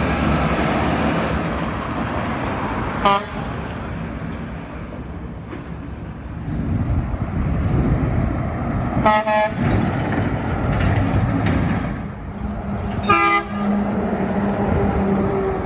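Passing trucks sounding short horn toots over steady road traffic: one toot about three seconds in, a quick double toot around nine seconds, and another near thirteen seconds.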